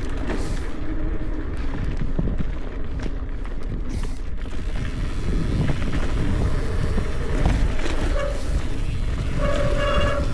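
Mountain bike rolling fast downhill over a dirt and gravel trail: a heavy rumble of wind buffeting the microphone mixed with tyre noise and the rattle of the bike. A short steady tone sounds twice near the end, once briefly and once for nearly a second.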